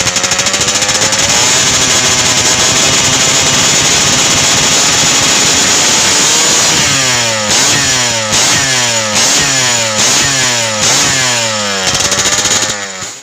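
Yamaha F1ZR two-stroke moped engine, set up for grasstrack, held at high revs for about seven seconds. It is then blipped in a quick string of rises and falls, about one a second, and the sound drops away sharply at the very end.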